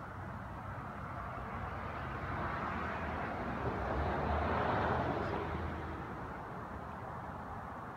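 A vehicle passing by: a rushing noise with a low rumble that swells to a peak about halfway through and then fades away.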